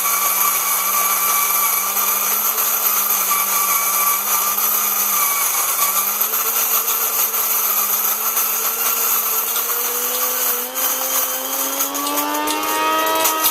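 Braun KMM1 electric coffee grinder running, its motor hum steady over a grinding rasp. The motor's pitch creeps up from about halfway through and rises more steeply near the end.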